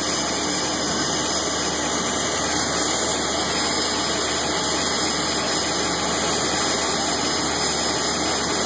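Turboprop engine of a Cessna Caravan idling on the ground with its propeller turning: a steady, loud, unchanging engine-and-propeller noise.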